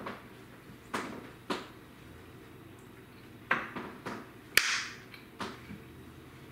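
A man chewing a mouthful of taco: a series of about seven short mouth and breath sounds, the loudest a little past the middle.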